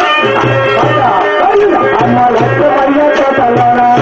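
Folk dance music: a hand-held frame drum beats a steady rhythm of about two to three strokes a second under a wavering melody.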